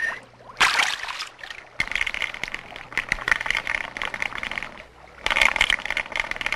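Water splashing and sloshing in a shallow stream as a small saint statuette is dunked and lifted out by hand, with a splash about half a second in, a few seconds of crackly sloshing and dripping, and another splash about five seconds in.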